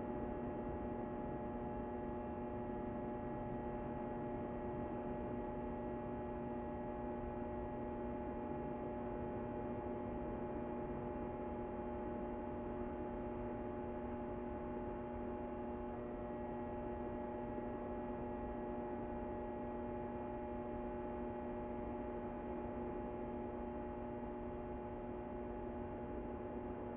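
A steady, unchanging hum: several held tones over a low rumble, with no breaks or sudden sounds.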